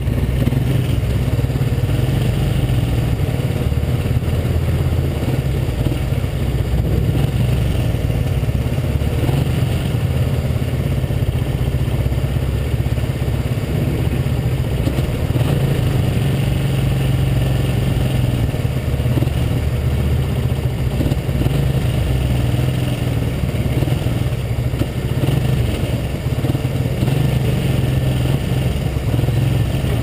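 1980 Honda CB125S's single-cylinder four-stroke engine idling steadily.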